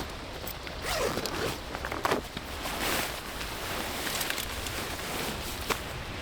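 Zipper on a tent or its bag being pulled open, in several rasping runs.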